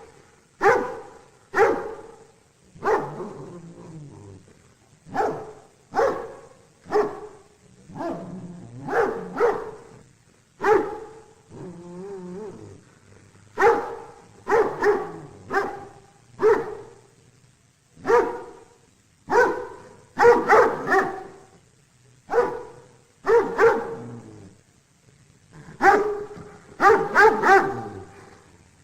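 A dog barking repeatedly, single barks and quick runs of two or three, with a brief whine or growl between barks about twelve seconds in.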